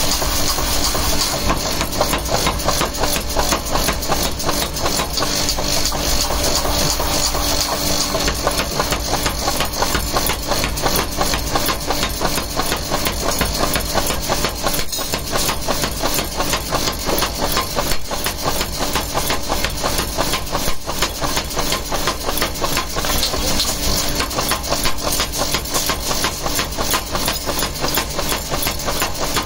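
Power hammer striking a red-hot iron bar in rapid, steady, unbroken blows as the hot rod is forged down.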